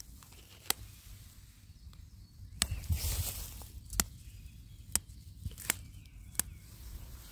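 Dandelion flower stems snapping as the heads are picked by hand: six sharp clicks roughly a second apart, with a short rustle of grass about three seconds in.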